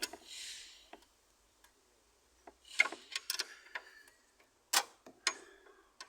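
Metal hand tools, spanners and a ratchet, clicking and clinking irregularly on nuts and bolts, with a short breathy hiss just after the start.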